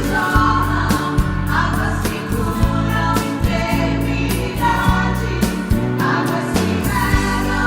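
Gospel song playing: a band with drums, bass and sung vocals.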